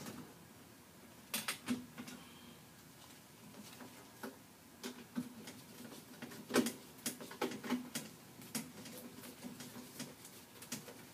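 Scattered light clicks and taps of hands working wiring and sheet-metal parts in an air handler's electrical compartment, with a sharper knock about six and a half seconds in.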